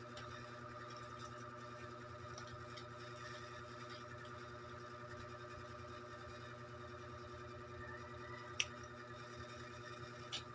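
Steady machine hum with several even tones, under faint handling ticks. Near the end come two sharp clicks from the plastic packaging and metal instruments being handled.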